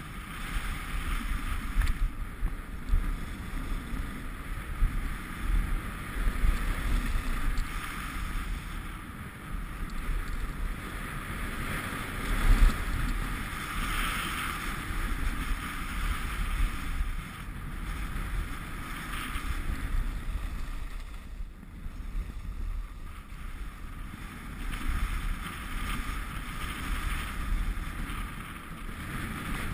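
Wind rushing over a moving action camera's microphone, with a low rumble, over the steady hiss of sliding downhill on snow. The noise rises and falls throughout.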